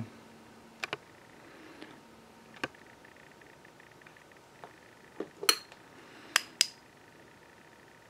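Light metallic clicks and clinks from a brass padlock and small tools being handled: about seven short ones spread out, the loudest a little past the middle, a couple ringing briefly.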